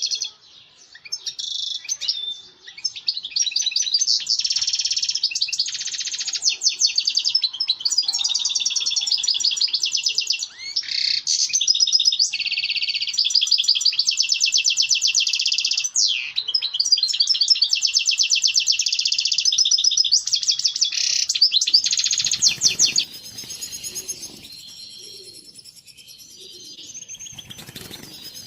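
European goldfinch singing its courtship song: a long run of rapid twittering and trills. About twenty seconds in, the song drops to softer twittering.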